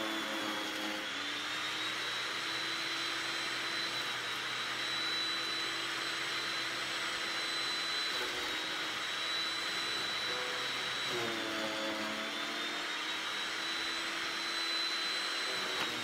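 Harbor Freight electric chipper shredder running with a steady high whine over a hiss, chewing thin carob clippings as they are pushed into the hopper. The whine sags briefly near the start and again about eleven seconds in, with a rougher grinding, as branches load the motor.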